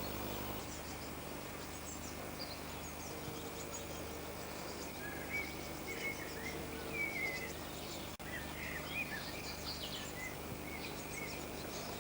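Small songbirds giving short, quick chirps, thickest from about five seconds in, over a steady low background hum.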